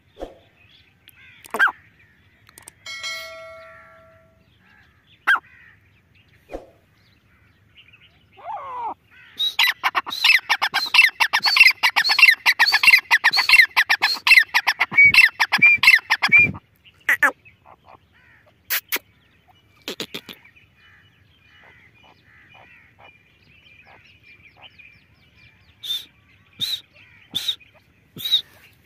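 Grey francolin calling: scattered single notes, then about seven seconds of loud, rapid, repeated calls in the middle, and a run of evenly spaced sharp notes near the end.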